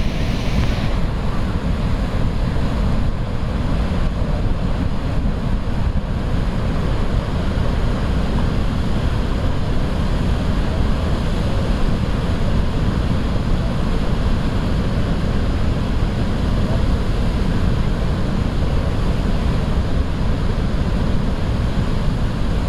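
Steady roar of Niagara Falls and its churning river, with wind buffeting the microphone in low gusty rumbles.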